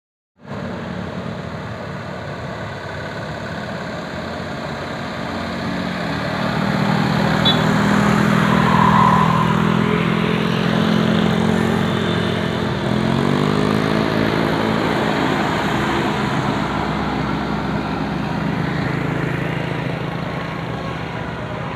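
Bus engine running and accelerating, its pitch climbing twice as it revs up. It grows louder toward the middle, then eases off slightly.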